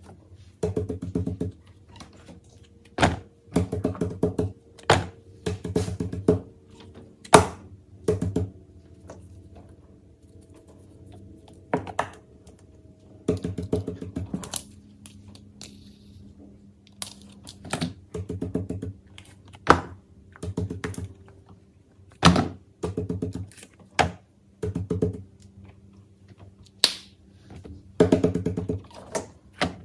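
Silicone pop-it fidget toys being handled and set down on a pile: soft thuds and short flurries of quick taps, with a sharp knock every few seconds.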